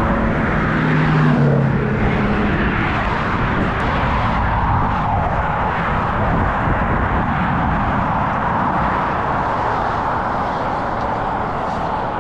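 Highway vehicle noise: a steady rush of tyre and road noise from cars at speed. In the first two seconds an engine note steps down in pitch.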